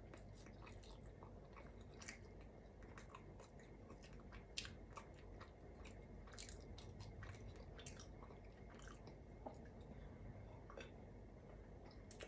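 Faint close-up chewing of a pretzel, with irregular small crunches and wet mouth clicks.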